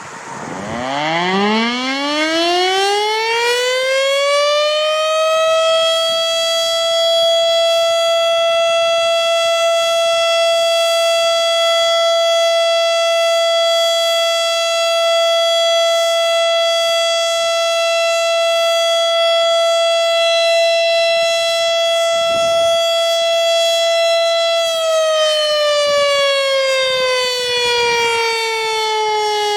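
Federal Signal STH-10 outdoor warning siren sounding its 30-second steady alert: it winds up, rising in pitch over the first five seconds or so, then holds one steady tone. About 25 seconds in it begins to wind down, falling slowly in pitch.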